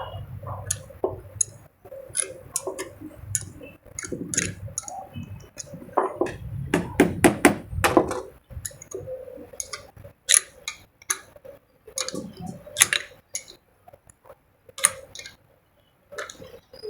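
A 13 mm spanner clicking and clinking against the nuts and metal body of a donkey water pump as its bolts are tightened: irregular sharp metallic clicks.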